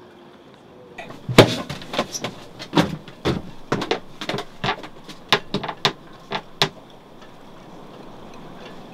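A run of sharp, irregular knocks and clicks, about fifteen in five seconds, the first one the loudest, over a faint steady background.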